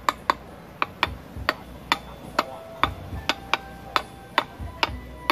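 A hatchet head tapping the metal end cover of a small electric water pump motor, about a dozen sharp metallic knocks at two to three a second, each with a brief ring. The taps go around the cover's rim, as when working the end cover loose from the motor housing to take the motor apart.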